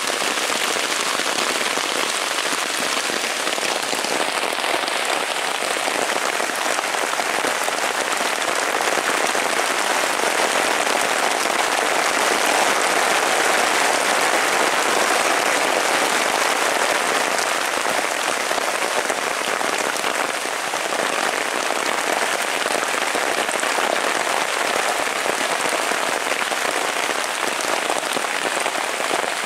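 Heavy rain pelting the fabric of a tent or tarp overhead, heard from underneath as a dense, steady downpour that swells a little in the middle.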